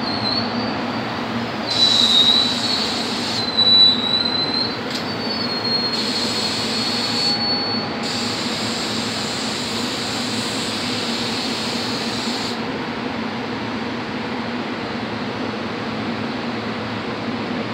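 SEPTA electric multiple-unit commuter train braking to a stop, with a high, wavering wheel-and-brake squeal for the first several seconds that peaks about two and four seconds in. Once stopped, the standing train gives off a steady hum.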